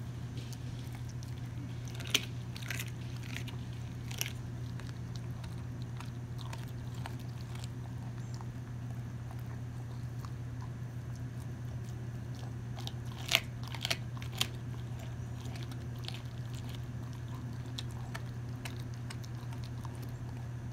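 Dog chewing a raw chicken leg quarter, gnawing with sharp crunches of bone, loudest about two seconds in and in a quick cluster of three around thirteen to fourteen seconds in. A steady low hum runs underneath.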